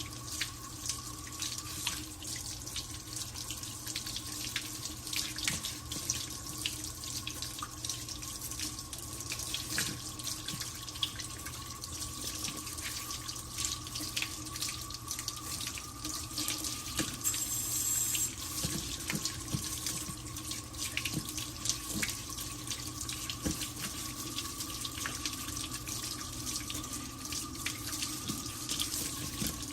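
Hot tap water running steadily into a sink while dirty wet-dry vacuum parts are rinsed under it, with small splashes and knocks throughout.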